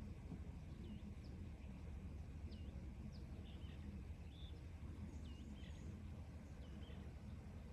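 Faint bird chirps: short, thin, high notes that dip and rise, about one a second, over a low steady rumble of outdoor background noise.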